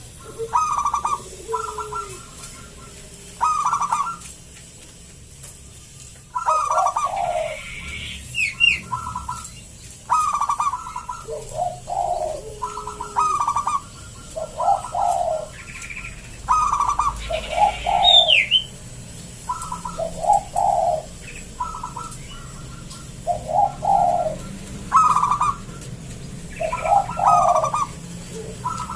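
Zebra dove (perkutut) cooing: short, rapid coo phrases repeated every second or two throughout. A few higher chirps come in around a third of the way in and again past the middle.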